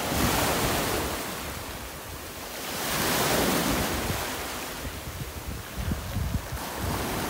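Small sea waves washing over shallow water, swelling twice, just after the start and again around three seconds in. Low gusts of wind buffet the microphone, most around six seconds in.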